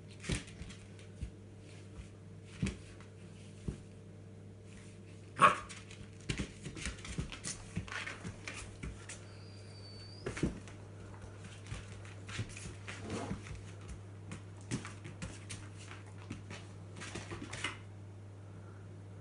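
A puppy and a Rhodesian Ridgeback at play on a hard floor: irregular claw clicks and scuffles with brief dog barks and whimpers, the loudest sound about five and a half seconds in. The activity dies down near the end.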